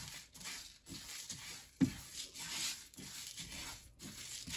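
Whole spices being dry-roasted in a nonstick frying pan, stirred with a silicone spatula: repeated dry scraping and rustling of seeds against the pan, with a sharper knock a little under two seconds in.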